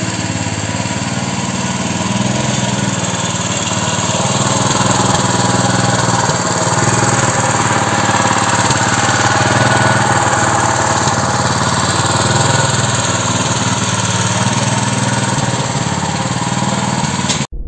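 Walk-behind tractor's engine running steadily as the machine drives past, louder in the middle as it goes by, then cutting off suddenly near the end.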